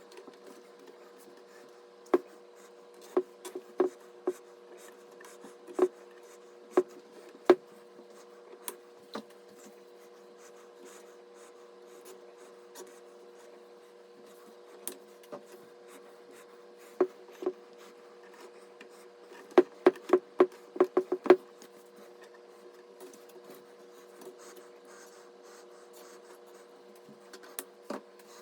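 Scattered sharp clicks and taps of PC hardware being handled during assembly, with a quick run of about ten clicks roughly twenty seconds in, over a steady low hum.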